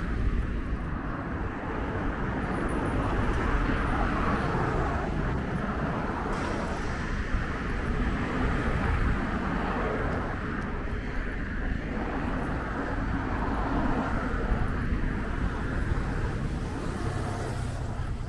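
Street traffic noise: a steady rumble of passing vehicles that swells and eases every few seconds.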